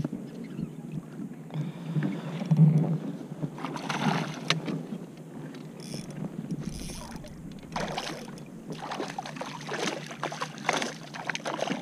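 Water sloshing against a kayak's hull as a hooked smallmouth bass is brought alongside, then a run of splashes and knocks near the end as the thrashing fish is scooped into a landing net.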